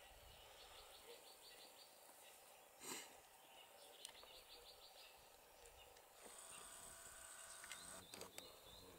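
Faint outdoor bush ambience: repeated trains of high, rapid chirps, with one short sharp knock about three seconds in and a thin high buzz joining from about six seconds in.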